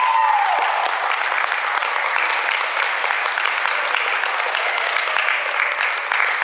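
Audience clapping steadily, with a cheer dying away just after the start.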